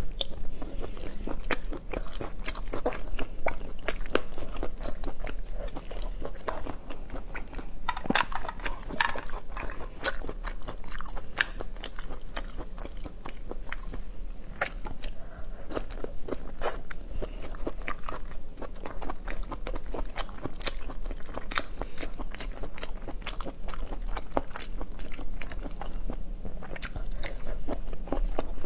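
Close-miked mouth sounds of a person biting and chewing cooked abalone, a dense run of quick irregular clicks and smacks, over a low steady hum.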